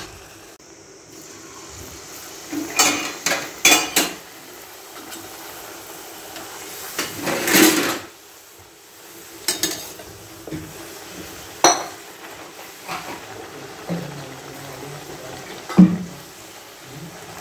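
Steel spoons knocking and scraping against metal cooking pans, a handful of separate clinks, one drawn out like a scrape, over a steady sizzle of puris deep-frying in hot oil.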